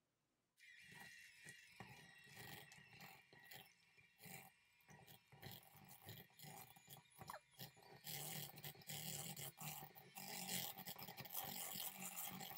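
Electric hand mixer starting up about half a second in, its motor whining steadily as the beaters churn a thick chocolate cream-cheese filling in a bowl. It grows louder from about eight seconds in.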